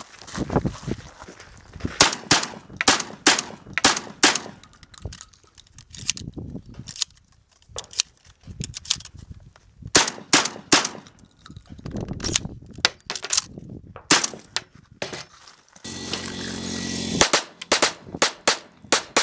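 Firearms shooting on a range: strings of sharp shots, several a second, in clusters separated by short pauses. Near the end a steady buzzing sound lasts about a second and a half.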